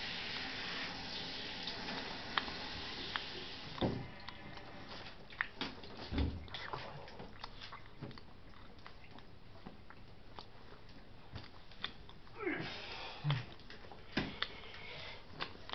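Handheld shower head spraying water onto a puppy in a bathtub, cutting off about four seconds in. After that, scattered light knocks and clicks as the puppy moves about in the empty tub.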